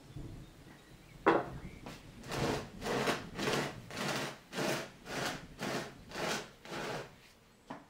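Black plastic bonsai pot scraping against the surface it stands on as it is turned by hand in short pushes: a sharp knock about a second in, then about nine scrapes, roughly two a second.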